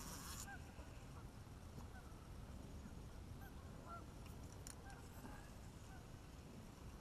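Faint, short bird calls at irregular intervals, several a second at times, over a steady low rumble.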